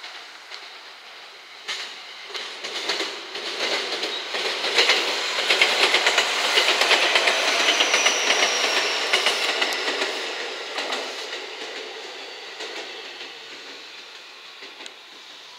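JR West 227 series three-car electric train running past, its wheels clattering over the rail joints in rapid clicks. The noise builds over the first few seconds, is loudest in the middle with a faint high tone drifting down, and fades as the train moves away.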